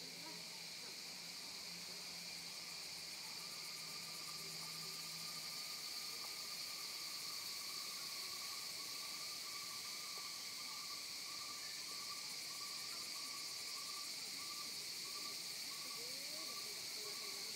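Steady, high-pitched insect chorus, with a faster pulsing trill joining about three seconds in.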